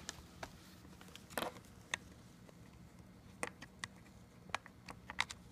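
Scattered faint clicks and light taps, about eight in all at uneven intervals, of a USB cable's plastic plug being handled against a laptop's side ports.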